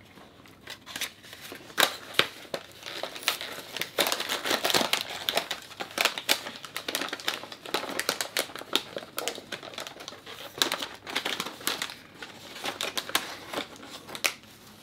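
Cardboard box being opened and clear plastic wrapping crinkling and crackling as the wrapped items are pulled out, an irregular run of crackles throughout.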